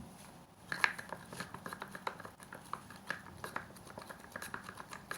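Light, irregular clicks and taps of a stick working through a thick glue mixture in a small pot, stirring in paint for slime. The clicks start about a second in and keep going, several a second.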